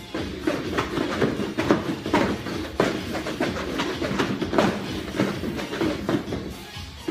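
Gym workout noise: irregular slaps and thuds, a few each second, over a steady low hum.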